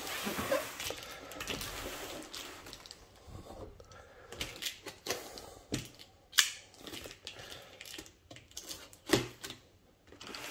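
Large cardboard box being handled and shifted, then a string of sharp clicks and slicing scrapes as a folding pocket knife cuts the packing tape, the two loudest about six and nine seconds in.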